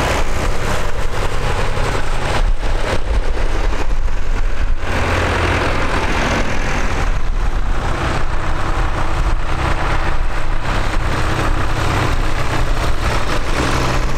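Diesel tractor engines running steadily as several tractors drive past one after another.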